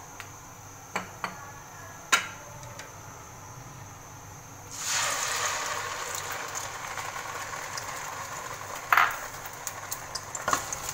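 A few light knocks, then about five seconds in, blended onion paste goes into hot oil and starts sizzling suddenly, frying steadily from then on, with one sharper knock near the end.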